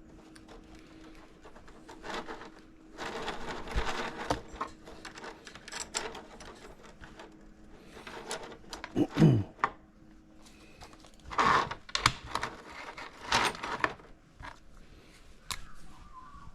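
Hands and tools working on an RC boat at a bench: irregular scraping, rubbing and clicking, with one louder scrape that slides down in pitch about nine seconds in. A faint steady hum runs underneath.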